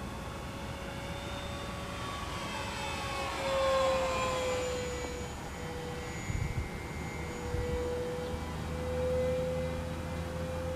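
Electric motor and propeller of an FMS Cessna 182 1.5 m RC airplane in flight, a steady whine. Its pitch falls as it flies past about four seconds in, then holds steady again.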